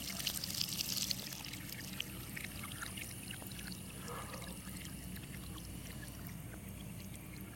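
Thin stream of water trickling from a leaking chrome washbasin tap into the ceramic basin and its drain. The trickle is steady, a little louder in the first second or so.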